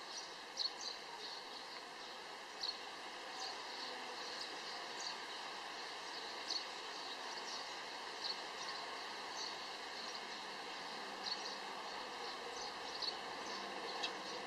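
Outdoor background ambience: a steady hum with scattered short, high chirps every second or two.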